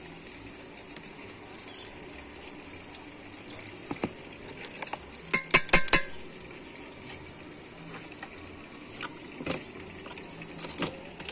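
Metal cookware and utensils clinking and knocking. There is a single knock about four seconds in, a quick cluster of sharp clinks about halfway through, and a few more knocks near the end, over a steady low hiss.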